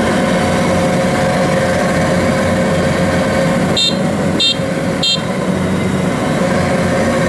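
Combine harvester engine running hard under load as the machine struggles to climb out of soft mud. Three short high beeps sound about halfway through.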